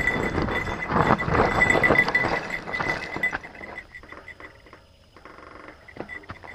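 Mountain bike descending a dry dirt trail: tyres crunching over dirt and stones, with the bike's chain and frame rattling. Loud and jumbled for the first three seconds, then much quieter, with a few light clicks.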